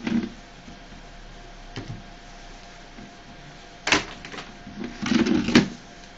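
Knocks and clatter of someone moving about at a desk: a few light knocks, a sharp clack about four seconds in, then a shuffle and another clack near the end as a plastic chair is sat in, over a faint steady hum.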